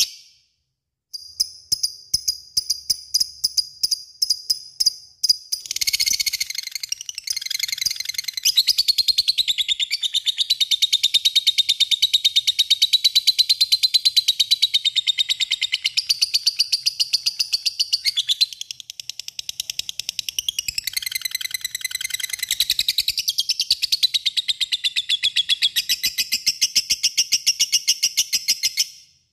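Lovebird's long rapid chatter, the 'ngekek panjang' that keepers prize. A few spaced short chirps give way, about six seconds in, to a fast, unbroken high chatter. It dips briefly past the middle, then picks up again and stops abruptly just before the end.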